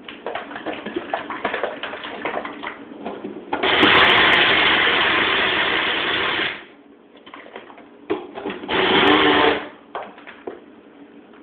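Bullet-style personal blender blending a thick raw chocolate mousse mix. First the cup rattles and knocks as it is shaken. Then the motor runs steadily for about three seconds, stops, and runs again briefly for about a second, with knocks of the cup between.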